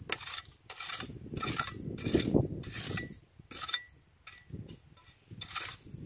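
Small metal hand rake scraping and clinking through gravel and stones in a rock crevice in irregular strokes, raking for clams. The strokes thin out about two thirds of the way through.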